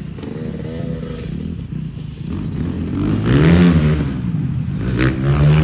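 KTM 250 SX two-stroke motocross engine running and revving up and down. The loudest rise and fall comes about three and a half seconds in, and it rises again near the end.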